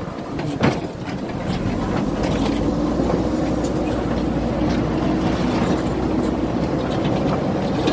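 JCB backhoe loader's diesel engine running steadily under load as the machine pushes through low brick boundary walls. A single sharp knock comes about half a second in.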